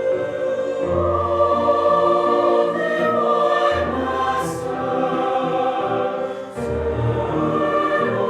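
Choir singing held chords with instrumental accompaniment, the bass note changing about every three seconds.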